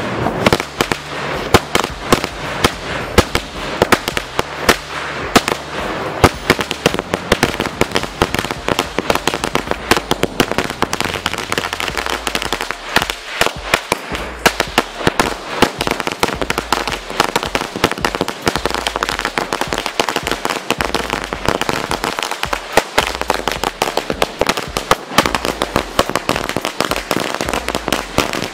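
A 5000-wala string of firecrackers (lari) going off: an unbroken run of sharp cracks, many each second, as the chain burns along.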